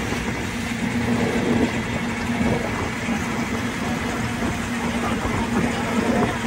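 Amphibious tour vehicle's engine running steadily while it cruises on the water: a constant hum over a steady rushing noise.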